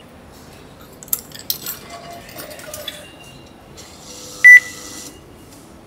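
Coins clinking and clicking into a railway ticket vending machine, then a single loud electronic beep from the machine about four and a half seconds in.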